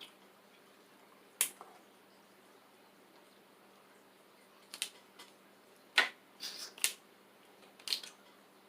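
Eating sounds from a seafood boil of crab legs and shrimp: scattered sharp clicks and cracks, about six of them, most in the second half, over faint room tone.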